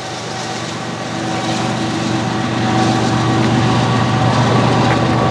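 GE ES44AC diesel locomotive, the rear distributed-power unit of a coal train, running as it pulls away: a steady low engine drone with a faint held whine over rolling noise, growing a little louder through the middle.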